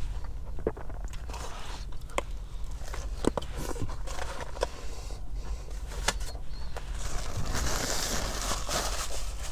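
Paper sandwich wrapper crinkling and rustling as a McRib is handled, with scattered small clicks; the crinkling turns denser near the end.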